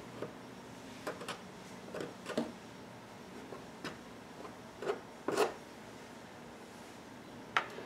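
A flat blade scraping and rubbing on a Razor S 900's plastic fender in short, irregular strokes, clearing excess plastic bonder from a glued crack.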